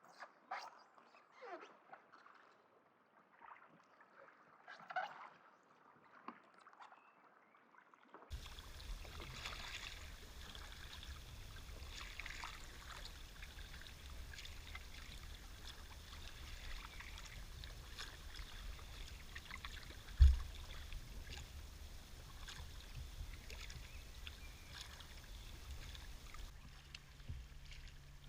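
Faint scattered chirps, then from about eight seconds in the steady wash of water around a paddled sea kayak, with irregular splashes and a low rumble. There is one sharp, loud thump about twenty seconds in.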